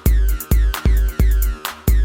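Electronic dance music with a steady, heavy kick-drum beat.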